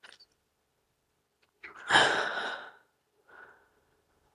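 A person breathing out in one loud, heavy burst about two seconds in, with softer breaths before and after.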